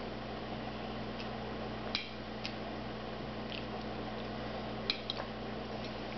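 A few light clicks of a metal table knife against a ceramic plate as food is pushed around it, over a steady low hum.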